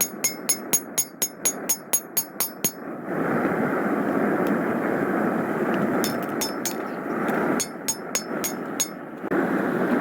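Hand hammer striking hot 5160 leaf-spring steel on an anvil, drawing out a knife blade: quick, evenly spaced ringing blows about four a second, in a run at the start and again from about six to nine seconds in. Between the runs a steady rushing roar, the single-burner forge.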